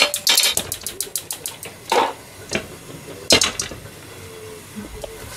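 Metal kitchen utensils clinking and clattering against a pot and the counter: a quick run of clicks over the first two seconds, then two louder clatters about two and three and a half seconds in.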